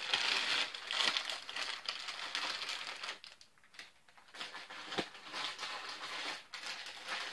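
Crinkly plastic candy bag and other food packaging rustling and crackling as they are handled in a box, with one sharp knock about five seconds in.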